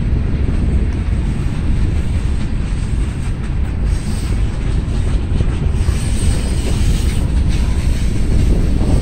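Freight train of tank cars rolling past at speed: a steady low rumble of steel wheels on the rails with some clatter, and wind buffeting the microphone.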